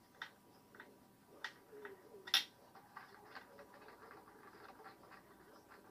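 Small, sharp metal clicks and taps as a loosened seat-cowl bolt and a hex key are handled against a motorcycle's bodywork: about six scattered clicks, the loudest a little over two seconds in, then quiet handling.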